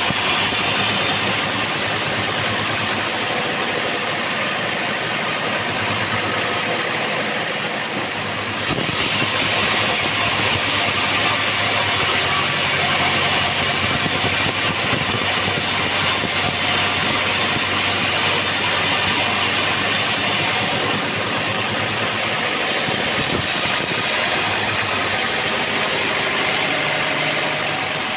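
Homemade band-saw sawmill running: a steady low hum under a strong hiss. The hiss grows brighter and louder about a third of the way in and eases again about three quarters through.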